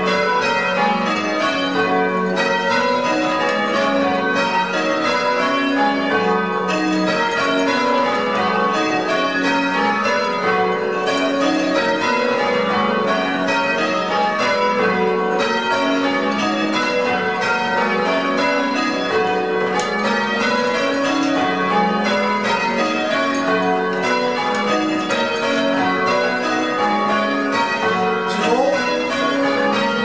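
Church bells being change-rung. Ringers pulling ropes swing the tower's ring of bells full circle, and the bells strike one after another in a steady, unbroken run of strokes at many different pitches.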